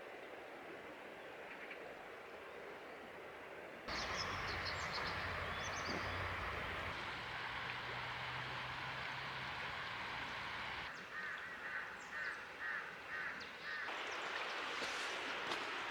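Outdoor ambience of a steady rushing noise, like flowing water, with birds calling: high chirps about four seconds in, and a run of short, evenly repeated calls from about eleven to fourteen seconds in. The background changes abruptly several times.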